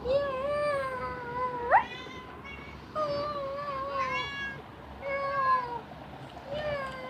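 Domestic cat giving a run of about four long, drawn-out meows. The first ends in a sudden upward squeal just under two seconds in.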